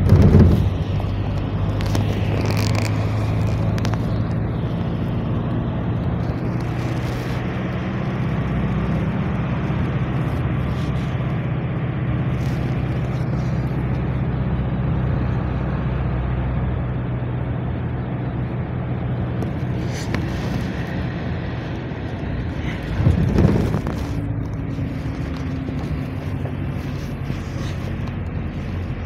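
Cabin noise inside a GAZelle Next minibus on the move: a steady engine drone over road noise. A short, louder burst of noise comes right at the start and again about 23 seconds in.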